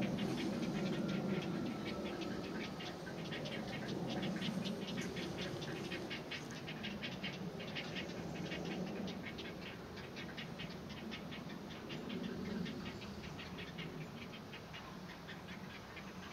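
Great blue heron nestlings calling from the nest with a fast, rhythmic ticking, several clicks a second, over a low rumble. The calling fades toward the end.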